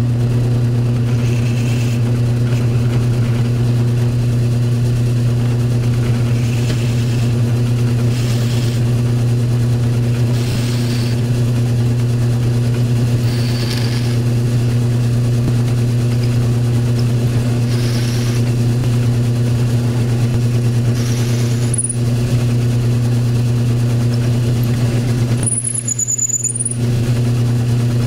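Drill press motor running steadily as its twist bit drills down into a wooden pen blank, with a faint scraping of the cut every few seconds. A few brief high-pitched squeals sound near the end.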